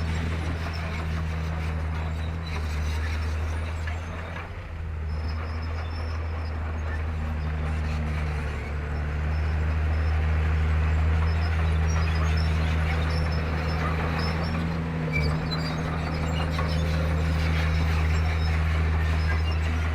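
Diesel engine of a Komatsu D31P bulldozer running, a steady low drone that eases off briefly about four seconds in and builds up again about halfway through.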